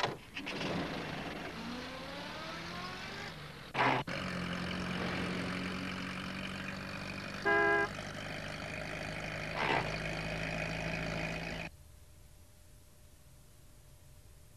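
Sound effect of a small red post van: a door thud, then the engine pulling away with its pitch rising, a loud clunk about four seconds in, and a steady engine run with one short horn toot midway. The engine sound cuts off abruptly about three seconds before the end.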